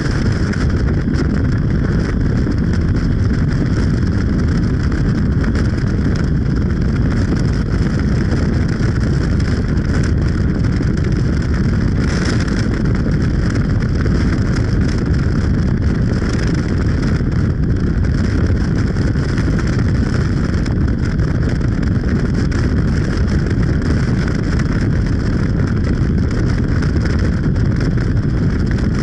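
A vehicle travelling at a steady speed: a continuous low rumble of road and wind noise with no changes.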